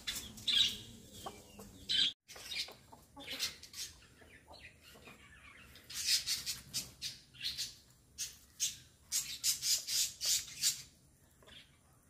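Domestic chickens and chicks calling in short clucks and chirps. The brief calls come in a scatter, thickest between about six and eleven seconds in.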